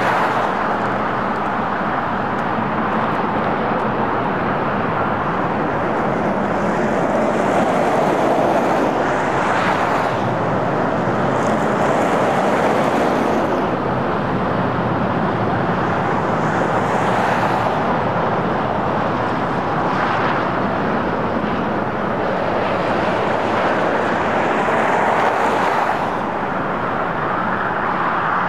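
Union Pacific rotary snow plow train at work clearing deep snow: a steady rumbling rush, with brief hissing swells now and then.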